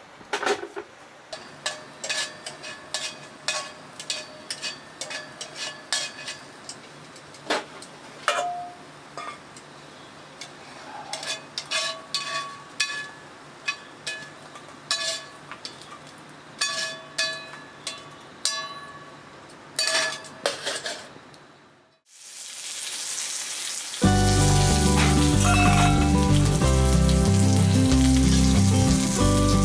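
Food frying in a Turk forged-iron frying pan over a campfire, with repeated sharp, ringing clinks of metal on the pan. Near the end it fades out and loud music takes over.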